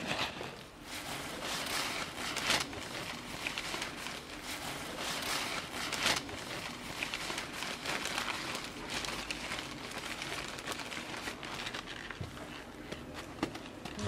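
A white food bag and its wrapping crinkling as they are handled: many small crackles, with sharper ones about two and a half seconds and six seconds in.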